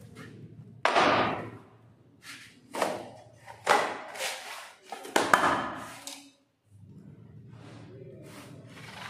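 A handful of sharp thuds and knocks as cardboard boxes of sky-shot fireworks are set down and handled on marble floor tiles, the loudest about a second in, then a low steady background hum.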